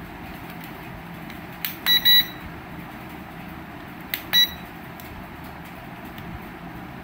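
A toy RC helicopter's remote control beeping as its buttons are pressed: a click then a quick double beep about two seconds in, and another click and a single short beep about two seconds later, over a steady faint hiss.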